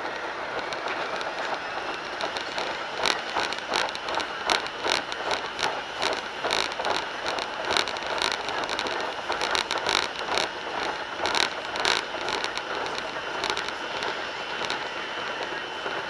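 Speed Queen Maxi Load washing machine running with a steady whir, with a spell of irregular rattling knocks and clicks in the middle.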